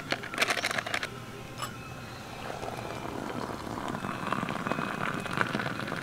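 Metal camping cookware clinks a few times, then hot tea pours from a small metal camping kettle into a mug, over a steady hiss.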